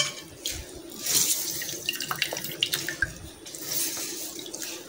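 Potato water gushing and trickling out of a cloth of grated potato as it is wrung out by hand into a metal bowl, in uneven spurts that come and go with the squeezing.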